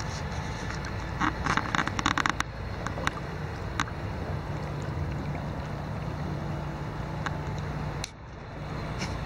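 Steady rushing of flowing river water over a gravel bed, with a quick cluster of sharp clicks and knocks about a second in and a few single clicks after. The sound briefly drops away near the end, then returns.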